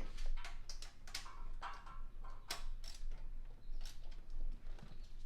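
Socket ratchet clicking in short, irregular spurts of light metallic ticks while new spark plugs are tightened into the cylinder head.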